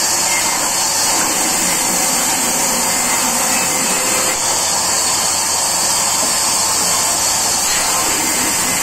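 Sawmill band saw running, its blade cutting lengthwise through a log with a steady, high-pitched hissing whir.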